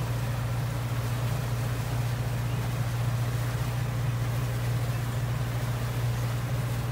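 Boat engine running steadily at cruising speed: a constant low drone that does not change.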